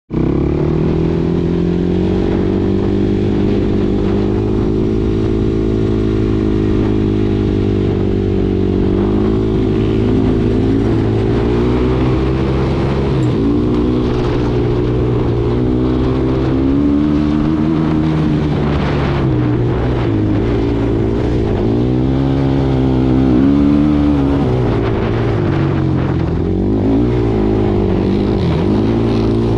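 Suzuki LT-R450 sport quad's single-cylinder four-stroke engine running under throttle. Its pitch holds fairly steady for the first eight seconds or so, then rises and falls over and over as the throttle is opened and closed.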